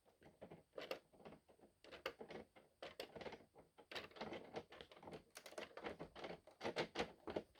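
Hard plastic LEGO parts clicking and clacking as they are handled, in a quick, irregular run of light clicks.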